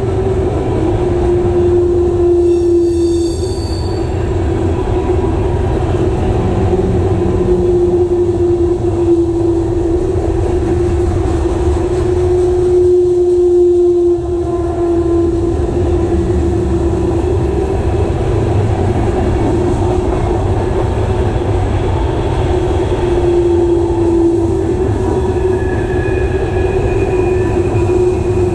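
Covered hopper cars of a freight train rolling past close by: a steady rumble of steel wheels on rail, with a wavering squeal from the wheels all the way through. A brief high, ringing squeal comes about three seconds in, and fainter high squeals come near the end.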